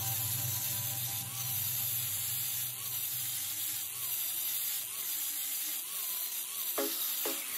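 Angle grinder with an abrasive disc grinding the bevel of a steel axe head, a steady hissing noise of disc on metal.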